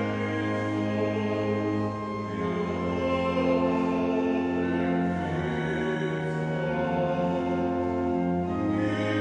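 Organ playing slow, sustained chords that change about three times.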